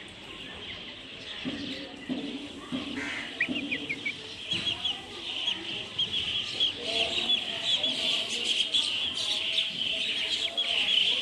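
Birds chirping, many short quick chirps that come thicker and faster from about four seconds in.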